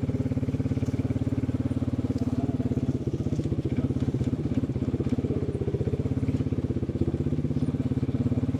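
Farm vehicle's engine running steadily with a fast, even throb while moving empty fruit bins.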